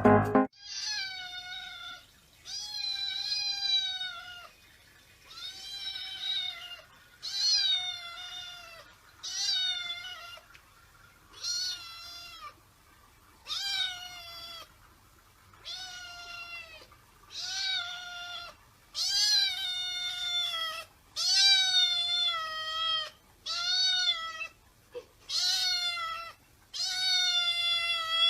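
A domestic cat meowing over and over: about fifteen drawn-out meows, each around a second long, coming one every couple of seconds at much the same pitch.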